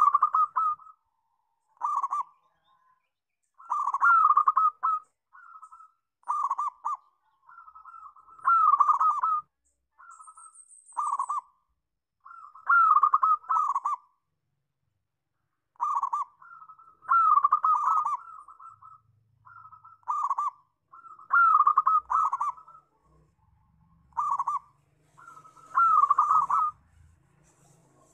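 Zebra dove (perkutut) cooing: its song repeated as short rolling coo phrases every second or two, with brief silent pauses between them.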